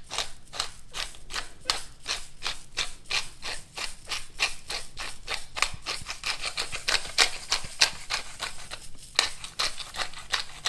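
Hand-twisted pepper mill grinding peppercorns: a quick, even run of crunching clicks, about five a second, with a short pause near the end before the grinding resumes.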